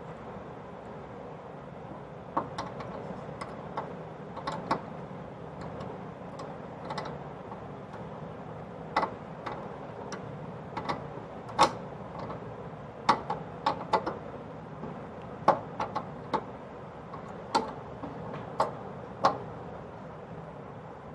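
Irregular sharp metallic clicks and ticks as a tool works the screws of a gas stove's burner jet and valve fitting to tighten it, a couple of dozen in all, the loudest about halfway through, over a faint steady hiss.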